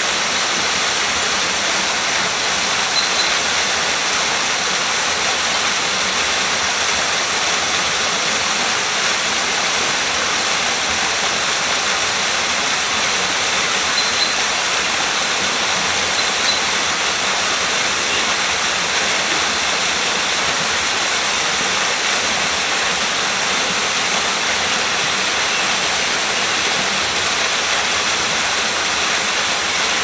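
Flowing water rushing steadily, an even hiss with no surges or breaks.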